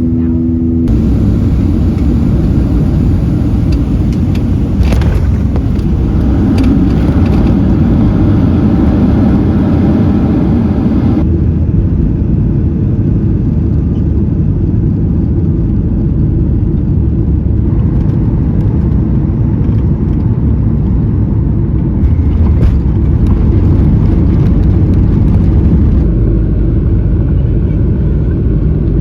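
Boeing 737 airliner jet noise: a loud, steady low roar with rumble. Its character changes abruptly several times, about a third of the way in and again a few times in the second half.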